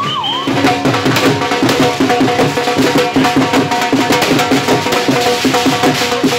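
A siren's rising wail ends about half a second in. Drum-led music follows, with a fast, even beat over a steady held tone.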